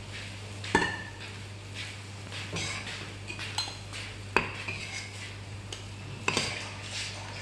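A cup scooping flour and knocking against the bowl: three sharp clinks with softer scraping between them. A steady low hum runs underneath.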